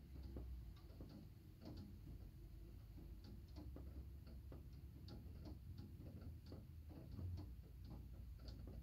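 Faint, irregular ticks and taps, a few a second, over a low steady rumble.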